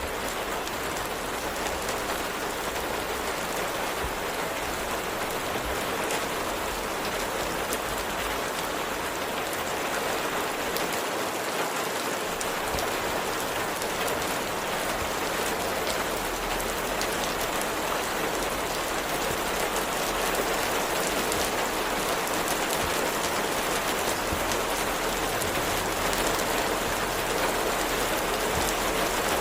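Steady rain falling, a dense even hiss with a fine patter of drops.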